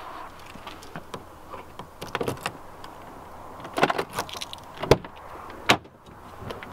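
Scattered clicks, rattles and knocks of someone handling things in a car's driver seat, with two sharp thumps, about five seconds in and just before six seconds.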